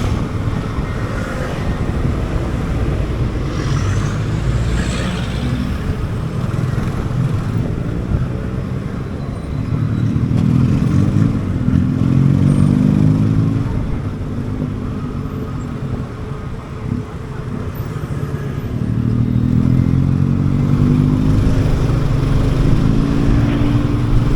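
Motorcycle engine running while riding, with wind rumbling on the microphone; the engine pitch rises as the bike accelerates about ten seconds in and again near the end.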